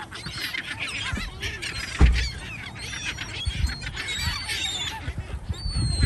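A large flock of gulls calling over one another in a constant chatter of short squealing cries. A single sharp low thump about two seconds in is the loudest sound.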